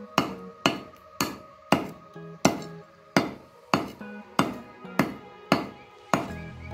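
A meat cleaver chopping mutton on a wooden log chopping block, in steady strokes about two a second, each a sharp knock with a brief ring.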